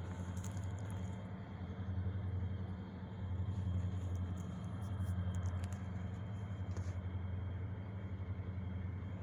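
EMD SD40-2 diesel-electric locomotives' engines running with a steady, low, pulsing rumble that swells slightly a few seconds in.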